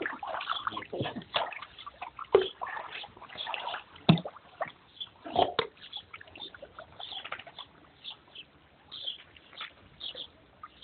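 Water splashing and sloshing as a dachshund paddles through a shallow pool, in irregular splashes that are loudest in the first half.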